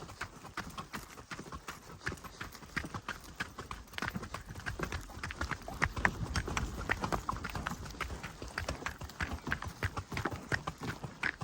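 Steps along a forest path: a steady run of irregular short knocks and crunches.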